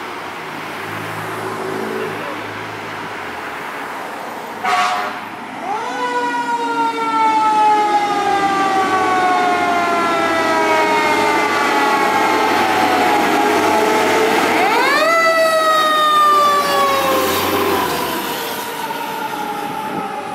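Siren of a 2005 Seagrave fire engine running on an emergency response. A short loud blast comes about four and a half seconds in. Then the siren twice winds up quickly and falls slowly in pitch, fading near the end as the truck drives away.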